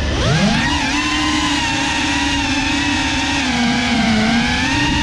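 GEPRC Cinelog 35 cinewhoop's brushless motors, on a 6S battery, spinning up from rest. They give a whine that rises in pitch over the first half second, then hold a steady low-throttle hum with small wavers in pitch.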